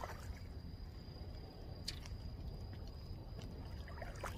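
Quiet outdoor ambience: a steady low rumble with a faint steady high whine, and a few faint clicks near the start, about two seconds in and near the end.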